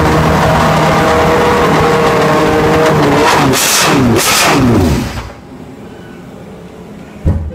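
Ford Cosworth DFV 3-litre V8 racing engine idling, then blipped twice, each rev rising and falling sharply. About five seconds in the engine sound stops abruptly, and a single sharp knock follows near the end.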